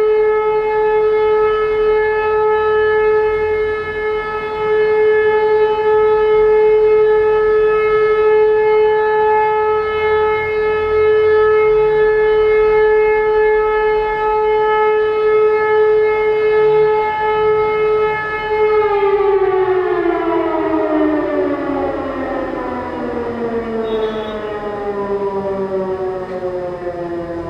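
E57 electric civil-defence siren sounding a steady, loud tone that is rich in overtones. About two-thirds of the way in it is switched off and winds down, its pitch falling slowly and evenly.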